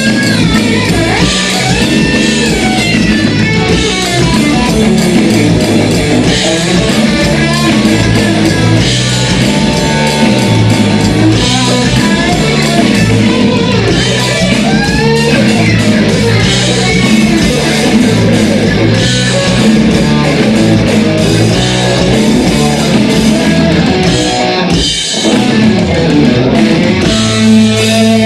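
Live rock band playing loud: Telecaster-style electric guitar over a drum kit, with a brief break near the end.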